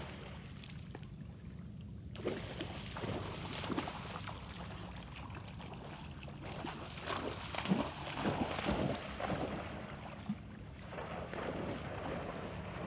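Shallow lake water splashing and sloshing irregularly as a dog and a person wade through it, with wind rumbling on the microphone.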